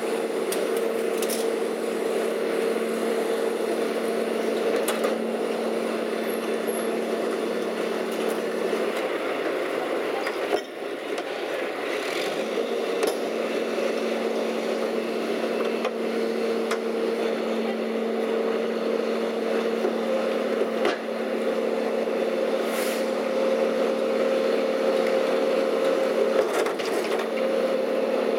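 Leach 2R-II rear-load garbage packer truck running at idle with a steady engine hum. Scattered clunks and scrapes come from demolition debris and a steel can being dumped into its hopper.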